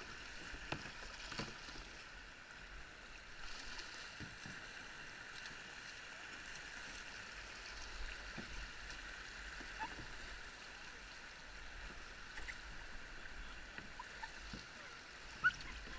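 Shallow river water rushing steadily over a riffle around a kayak, with scattered small splashes and knocks from the paddle and hull, and one sharper knock near the end.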